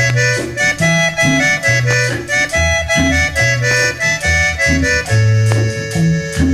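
Instrumental break of a cumbia song: an accordion plays the melody over a bouncing bass line and steady percussion, with no singing.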